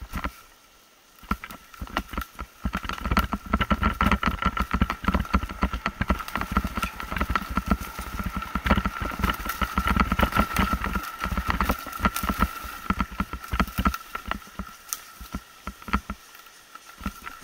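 Mountain bike descending a rough, leaf-covered dirt trail: a dense, fast clatter of the bike rattling over bumps and roots, with tyres crunching through dry leaves. It eases off near the end.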